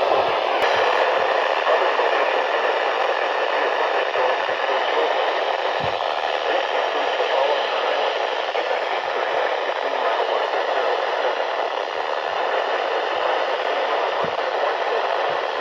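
Steady radio static hiss from a NOAA Weather Radio receiver, with no voice on the channel. A faint tone in the hiss fades out about half a second in.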